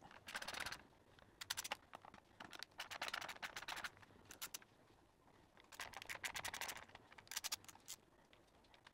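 Torx T20 screwdriver turning the small screws out of the back of a steering wheel: faint bursts of rapid scratchy clicks, about six of them, with short pauses between.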